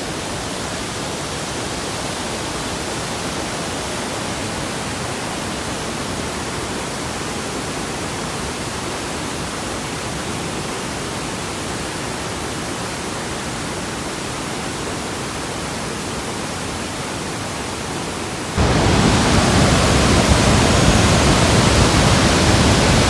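Steady rush of the Rhine Falls' water, an even hiss-like roar with no pattern. It suddenly gets much louder about three-quarters of the way through and stays steady.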